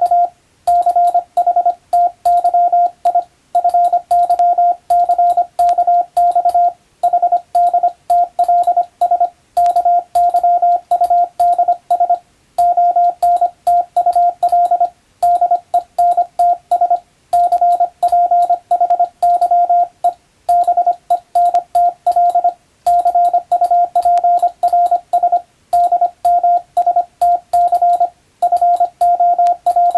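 Morse code (CW) practice signal: a single steady tone keyed rapidly on and off in dots and dashes, with short pauses between letter groups.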